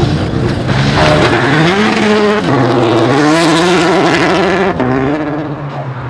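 Citroën DS3 rally car's engine revving hard under acceleration on a loose dirt stage. Its pitch climbs, drops at a gear change about two and a half seconds in, then climbs again. Near the end the sound gives way to a lower, steadier engine note from another car.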